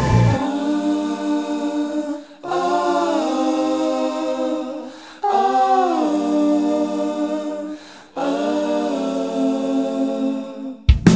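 Background music: a quiet passage of sustained, layered singing without drums or bass, in four long held phrases. The full band with drums comes back in at the very end.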